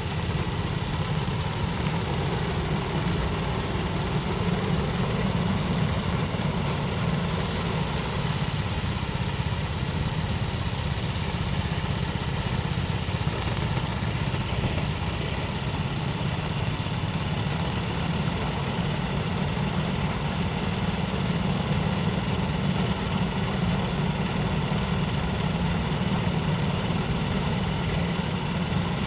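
Engine-driven rice thresher running steadily, a continuous even engine drone with no change in speed.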